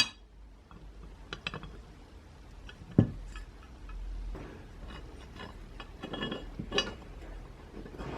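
Small metal parts clicking and clinking as they are handled, at an irregular pace, with one dull knock about three seconds in.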